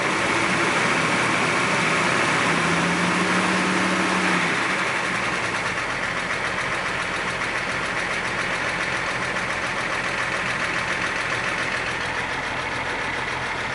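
2003 Jeep Wrangler TJ's 4.0-litre straight-six idling steadily with a regular knock running through it. The owner suspects a broken piston skirt or bad piston rather than a crank bearing.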